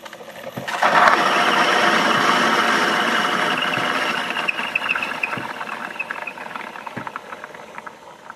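Tassimo Brewbot T20 pod coffee maker blowing steam through the creamer disc at the end of its brew cycle. A loud hiss with sputtering starts about a second in, then fades over several seconds into crackling spits.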